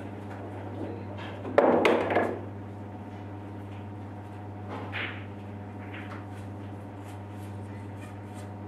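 Steady low room hum, broken by a loud clattering knock about a second and a half in and a fainter knock near five seconds.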